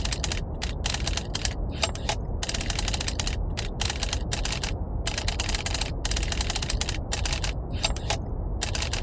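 Typewriter keys clattering in rapid, dense runs broken by short pauses, over a steady low rumble of brown noise.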